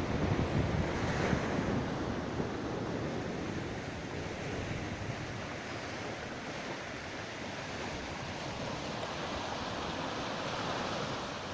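Small sea waves washing and breaking onto a sandy, pebble-strewn shore in a steady surf wash, with wind rumbling on the microphone, a little louder in the first couple of seconds.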